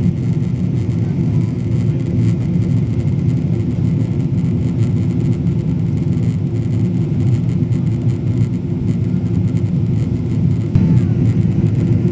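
Steady low rumble of a Boeing 777-200ER in flight, heard from inside the passenger cabin: engine and airflow noise, a little louder near the end.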